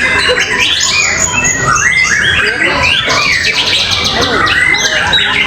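Several caged songbirds singing at once, a dense, unbroken tangle of overlapping whistles, chirps and rapid trills, each bird pressing its song over the others.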